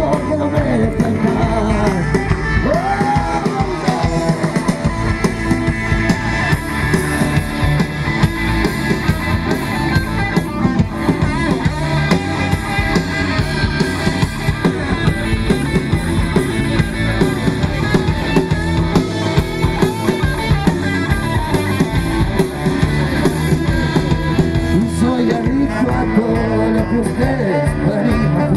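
A rock band playing live on drum kit and guitars, recorded digitally from within the audience.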